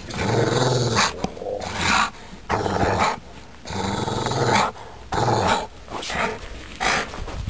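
Rottweiler growling in play over a soccer ball held in its mouth: a run of low growls, each under a second long, with short pauses between.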